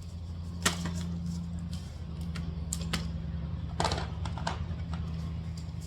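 Power drill running at a steady speed, boring a mounting hole that was left undrilled in the front lip, with scattered clicks and knocks as it works.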